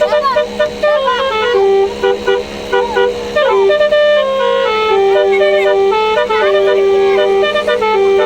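Bus 'telolet' horn, a basuri multi-tone horn, playing a tune: a run of pitched notes that step up and down, some short and some held for a second or more.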